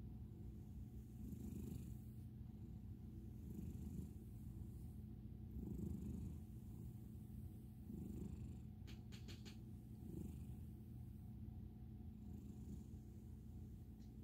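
American Ringtail cat purring steadily while its belly is rubbed, the purr swelling and easing about every two seconds with its breathing.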